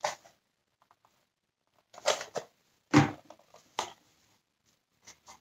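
Hard plastic parts of a Dyson Cinetic Big Ball cyclone assembly being handled and turned over, giving about five short clacks and rattles with quiet in between, the loudest about three seconds in.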